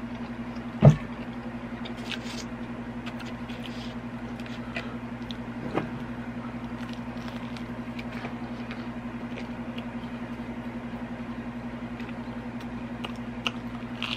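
Close-miked mouth sounds of a man biting into and chewing deep-dish pepperoni pizza: scattered soft clicks and smacks over a steady low hum, with one brief low thump about a second in.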